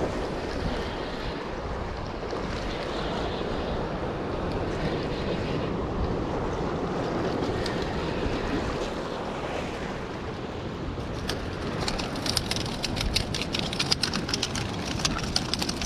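Wind on the microphone over surf washing against the rocks, then from about eleven seconds in a fast, irregular run of sharp clicks and taps.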